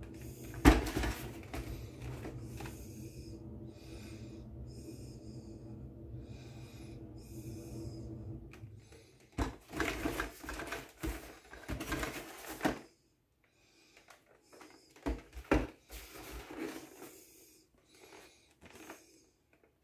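Handling sounds of a cardboard model display box being picked up and turned over in hand: irregular rustling and scraping, with a sharp knock about a second in. A low steady hum underneath fades out about two-thirds of the way through.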